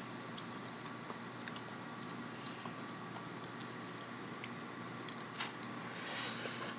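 Quiet room tone with a few faint, scattered clicks and a short soft rustle near the end.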